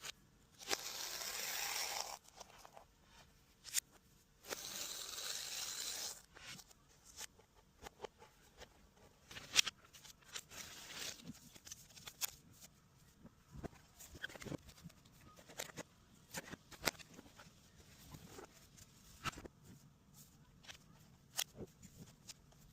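Packaging of a new iPad Air box being unboxed: two long tearing pulls near the start, then many small clicks, taps and rustles of cardboard and packing being handled.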